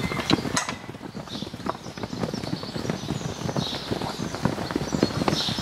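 Hooves of a herd of Shetland ponies walking and jostling on packed dirt: a quick, irregular patter of many hoofbeats.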